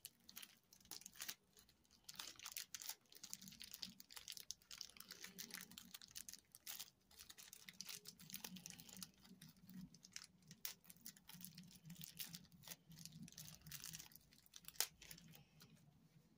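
Faint crinkling and rustling of handled plastic packaging, many small irregular clicks, over a low steady hum.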